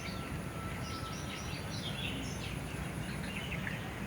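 Small birds chirping in a busy run of short notes that drop in pitch, over a steady low background rumble and a faint, thin high whine.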